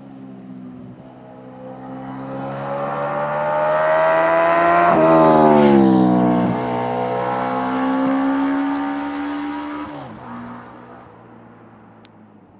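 Honda CB650 cafe racer's SOHC inline-four with a 4-into-4 exhaust passing by under acceleration: the engine note climbs in pitch and loudness as it approaches, drops sharply as it passes about five seconds in, holds on, then falls off near ten seconds and fades into the distance.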